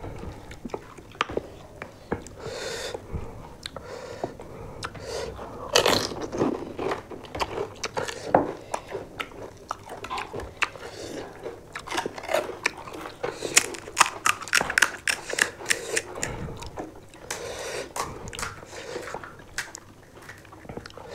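Pani puri being eaten close to the microphone: crisp, hollow fried puri shells crunch and crack as they are bitten, with chewing in between, many times.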